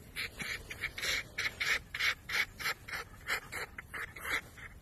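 Fox laughing while being petted: a quick run of short huffs, about five a second, which stops near the end.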